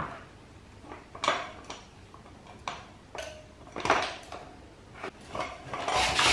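Scattered metal clinks and knocks as a dirt bike's rear wheel is worked loose and lifted out of the swing arm, with a busier, louder cluster of clatter near the end.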